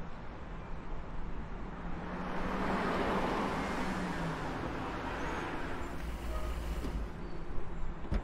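Street traffic noise with a car going by, swelling to its loudest about three seconds in and then easing off, with a brief low rumble later on.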